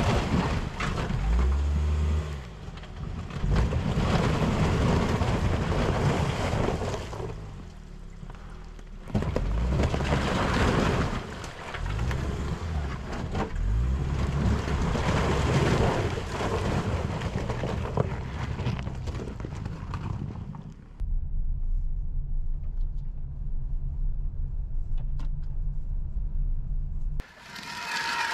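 Car engine revving in repeated surges as the car forces its way through thin ice and shallow water, with a continuous rush of breaking ice and splashing. About 21 seconds in the surging stops and the engine settles to a steady idle.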